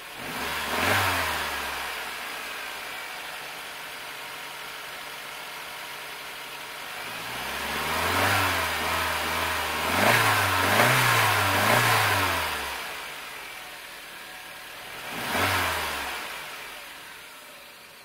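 1995 Mercedes-Benz E200's four-cylinder petrol engine idling and being revved: a quick blip about a second in, a run of several revs from about seven to thirteen seconds, and another blip at about fifteen seconds, each rising and falling back to idle.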